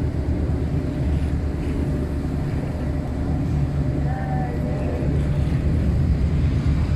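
Tour boat's motor running steadily under the rush of churning river water and a nearby waterfall.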